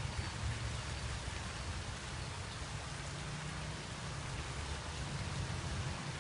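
Steady rainfall: an even hiss of rain with a low rumble beneath it.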